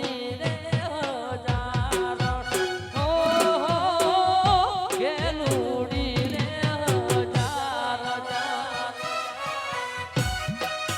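Gujarati folk raas music: an ornamented, wavering melodic lead over a steady drum beat.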